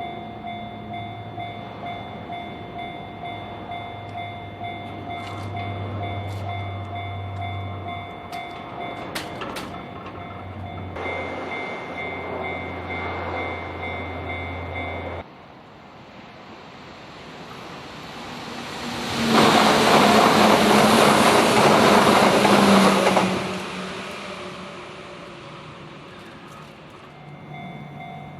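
Japanese level-crossing bell ringing its steady kan-kan alarm while an electric train passes, cut off suddenly about halfway. Then an electric train on the Hanshin Main Line runs through the crossing, loud for about four seconds before fading, and the crossing bell starts ringing again near the end.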